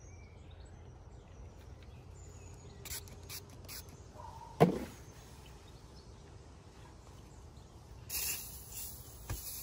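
A few short spritzes from a pump-spray bottle of tanning oil, then a longer aerosol hiss from a WD-40 can near the end, over a low steady rumble. About halfway through there is one short sound that slides down in pitch; it is the loudest thing here.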